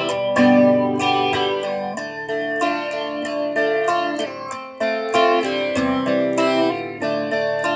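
Guitar playing an instrumental passage of quickly picked notes between sung lines of a song.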